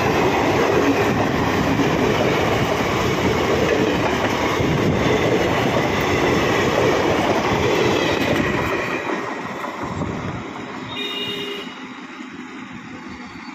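Coaches of an Indian Railways passenger express rolling past close by, a loud steady rumble of wheels on the rails that fades away over the last few seconds as the train draws off. A brief high tone sounds near the end.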